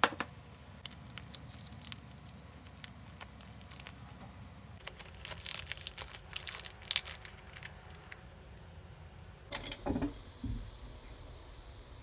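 Plastic instant-noodle sauce sachets crinkling as they are opened and squeezed out over noodles in a stainless steel bowl, busiest about halfway through. There is a sharp click at the start and a couple of dull knocks near the end.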